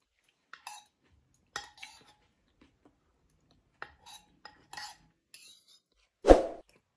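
Metal spoon clinking and scraping against a bowl while someone eats: a handful of light, separate clinks, then a louder, deeper thump about six seconds in.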